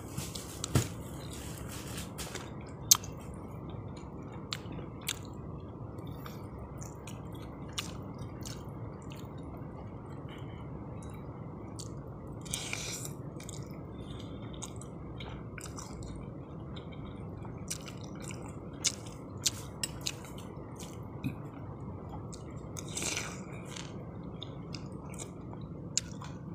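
Mouth sounds of a person eating fried noodles: chewing and slurping, with two longer slurps about halfway through and near the end. A spoon clicks sharply against the bowl now and then, over a steady low background hum.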